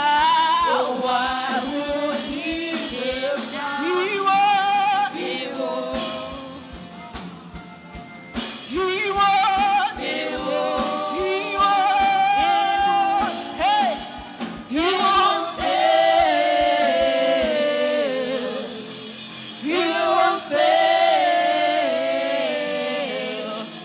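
Worship song: a sung melody with vibrato over instrumental backing and a steady low beat. The music thins out and drops in level for a couple of seconds about seven seconds in, then builds again.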